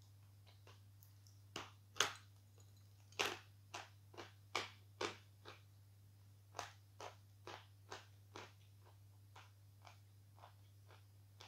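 A lump of natural 'Fresh' edible chalk being bitten and chewed: a string of dry, sharp crunches, loudest in the first few seconds and thinning to fainter ones near the end.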